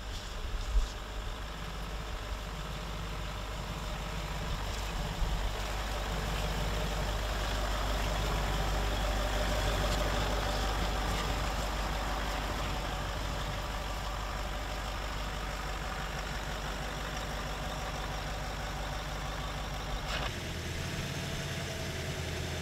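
Range Rover L322's engine running at low speed as the SUV crawls over grass and leaves off-road, heard from outside the vehicle, with a steady low hum that swells a little in the middle. A short sharp knock about a second in, and the sound changes abruptly near the end.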